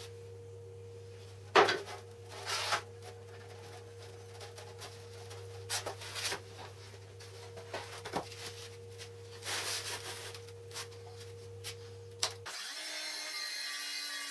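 Wooden saw-guide boards being shifted and slid into place on a worktable, with a few knocks and rubs of wood, the loudest knock near the start. Near the end a steady whine with hiss sets in as a corded circular saw runs along the guide's rail.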